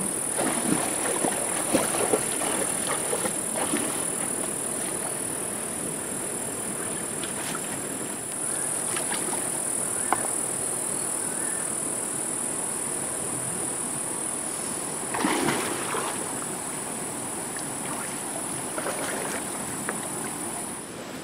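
Shallow stream water sloshing and splashing around wading legs, with occasional knocks of river stones being set in place as a stone fish-trap wall is built, over a steady high hiss.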